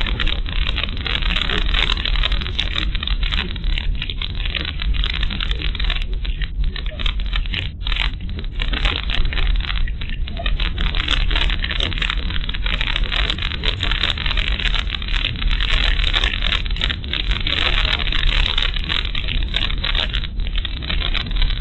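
Cabin noise of a car driving along an unpaved track, picked up by a dashcam's microphone: engine and tyre noise making a loud, continuous rumble and hiss.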